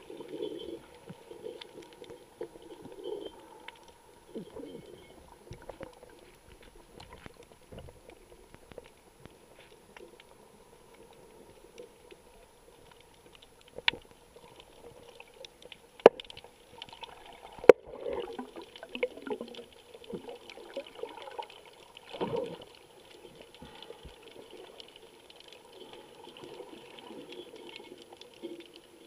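Muffled underwater water noise picked up through a camera's underwater housing, with three sharp clicks from the Drift HD Ghost camera taking still images while recording, about halfway through and spread over some four seconds.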